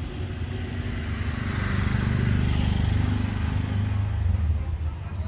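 A motor vehicle's engine, likely a motorbike, running and passing by, getting louder about a second in and easing off near the end.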